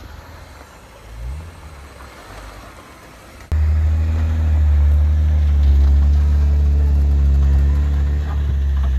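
Off-road 4WD engine running low, then about three and a half seconds in a sudden jump to a much louder, steady, low engine drone close by.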